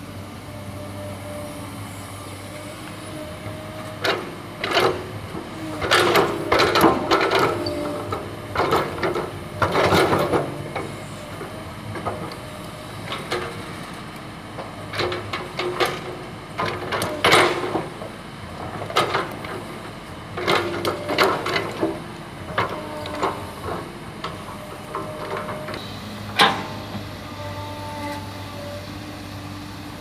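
A hydraulic excavator's diesel engine running steadily, with clusters of loud crashing and scraping as bucketloads of red earth are dug and dumped into the steel bed of a dump truck, from about four seconds in until near the end.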